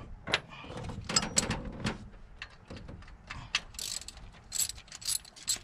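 Hand socket ratchet clicking as a bolt on the engine's upper intake is worked loose, in irregular strokes with quicker runs of clicks about four seconds in.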